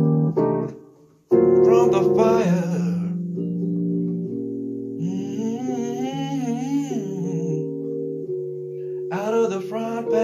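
Electric piano playing slow, sustained jazz-blues chords, with a man singing long, wavering held notes over them. The playing breaks off briefly about a second in, then the chords resume.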